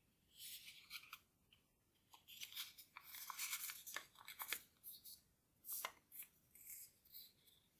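Origami paper rustling and crinkling in the hands as a folded paper hat is pulled open and pressed flat into a square, in several short bursts with a few sharp crackles as the creases give.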